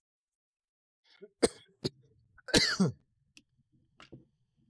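Sharp plastic clicks as the folding level's removable end caps are handled. About two and a half seconds in comes the loudest sound, short and falling in pitch.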